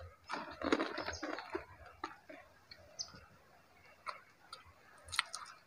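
A person chewing food, with wet smacking clicks of the mouth. They are densest in the first two seconds, then come only as scattered ticks.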